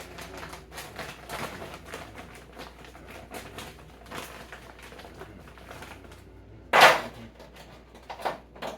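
Rapid light clicking and clattering of kitchen handling, with one loud short knock about seven seconds in and two smaller knocks near the end.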